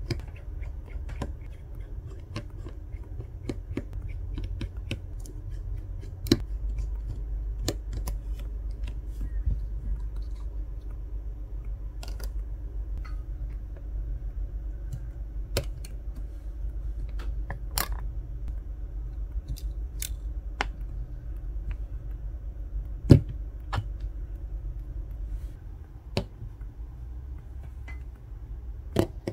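Small sharp clicks, taps and scrapes of precision tools and parts inside an iPhone 14 Pro: a tri-wing screwdriver on tiny bracket screws, a plastic spudger unclipping the battery connector, and parts set down on a mat. The clicks are scattered and irregular, the sharpest about 23 seconds in, over a low steady hum.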